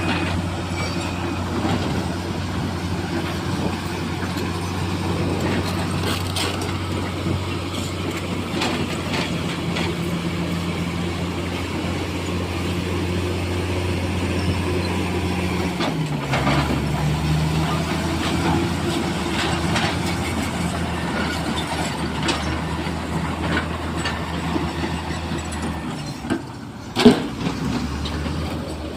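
Heavy diesel engine of a working excavator running steadily, with scattered clanks and knocks. The engine note drops a little about halfway through, and a single loud bang comes near the end.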